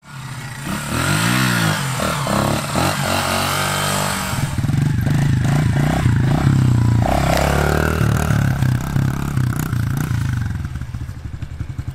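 Small single-cylinder four-stroke Honda mini dirt bike engine revving up and down, the pitch rising and falling in the first few seconds, then running hard at a steadier high pitch.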